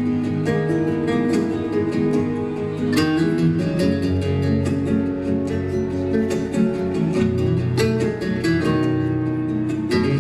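Live flamenco-style guitar music: nylon-string guitar playing rapid plucked notes over bass and percussion.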